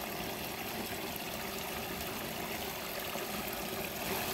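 Water trickling steadily in a small, shallow irrigation ditch.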